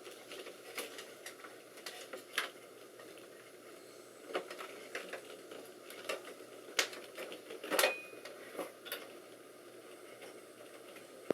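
Irregular clicks and light knocks of hands working on the parts and cable connectors of a desktop computer, with a louder clatter about eight seconds in.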